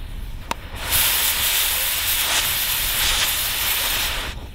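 Oxy-fuel cutting torch hissing loudly and steadily as its jet cuts into an aluminum AR-15 lower receiver. The hiss starts about a second in, just after a short click, and cuts off sharply near the end.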